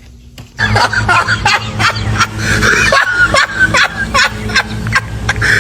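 Loud, chaotic laughing and squawking voices over a steady low hum, starting sharply and cutting off abruptly.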